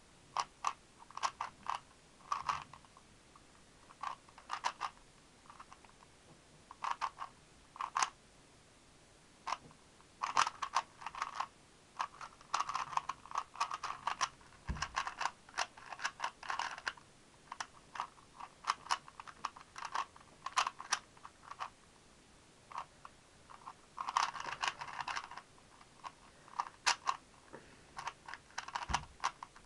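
Rubik's Speed Cube being turned fast by hand: irregular runs of quick plastic clicks and clacks from the layers turning, broken by short pauses, as in a speedsolve.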